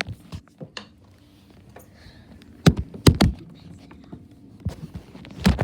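A few sharp knocks and thumps of toys being handled and set down: one about halfway through, a quick pair just after, and another near the end.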